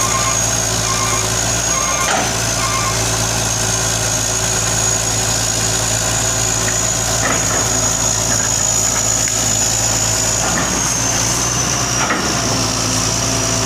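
Hitachi excavator's diesel engine running steadily under work, with a steady high whine that dips slightly near the end and a couple of light knocks.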